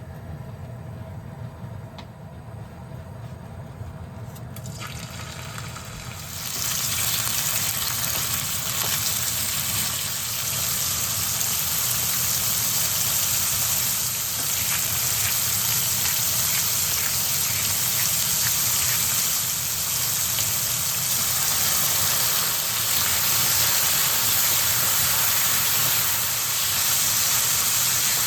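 Pork pieces sizzling in rice oil heated on high heat, a loud steady frying hiss that starts suddenly about six seconds in after a quieter stretch and keeps on.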